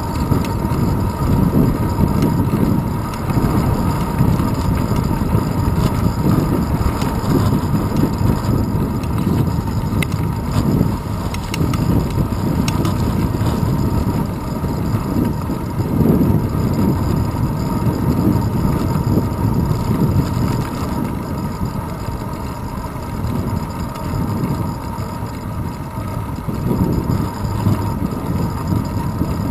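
Wind rushing over a handlebar-mounted GoPro Hero 2 on a moving bicycle, with tyre and road rumble: a loud, steady, buffeting low noise that swells and eases with no breaks.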